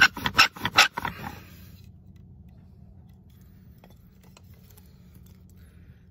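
Bow drill with a cedar spindle grinding in an alder hearth board: a handful of last bow strokes, each a loud scraping squeal, slowing and stopping a little over a second in while the notch smokes, the sign of a coal forming. After that only a few faint ticks.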